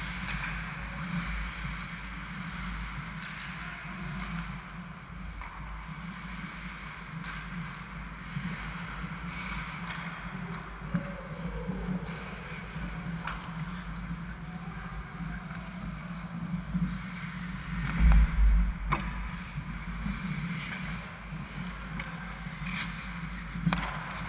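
Indoor ice hockey rink during play: a steady low hum under skate blades scraping the ice and scattered clacks of sticks and puck, with a heavy thump about eighteen seconds in.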